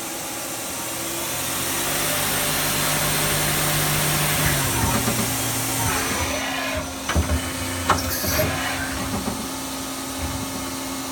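Daewoo Lynx 210A CNC lathe running a program: the spindle and 6-inch Kitagawa hydraulic chuck spin with a steady whir and a smooth hum that swells, then drops in pitch a little before halfway as the spindle slows. A few sharp knocks come around seven to eight seconds in.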